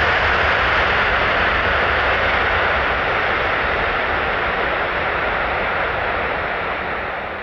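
Boeing 747-400's four jet engines running at high thrust as the aircraft rolls away down the runway: a loud, steady rush with a deep rumble underneath, easing slightly near the end.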